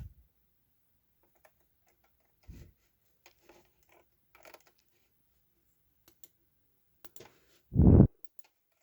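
Scattered faint clicks and taps of a computer mouse and keyboard, with a short, louder low thump near the end.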